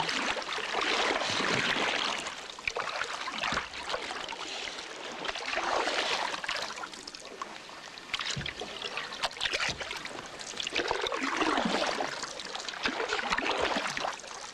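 Fast river water rushing and splashing in uneven swells, with a few sharp knocks.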